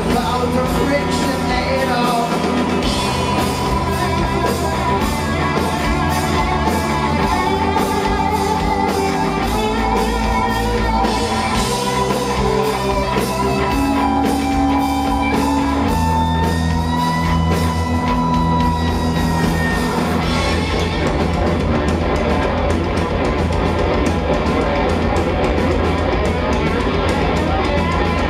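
Rock band playing live: electric guitars and bass over a steady drum-kit beat, with held and gliding lead-guitar lines in the middle.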